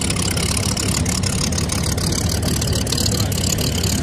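Powerboat engine running steadily as the boat cruises slowly, with a steady hiss of wind and water over it.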